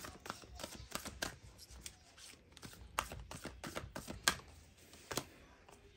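A tarot deck handled by hand, cards flicked and slid off the deck with a run of light, irregular clicks and snaps. The sharpest snap comes a little after the middle.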